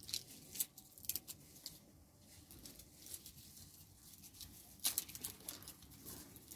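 Dry okra pods being split open by hand: faint, irregular crackling and rustling of the brittle husks, with a louder cluster of crackles about five seconds in.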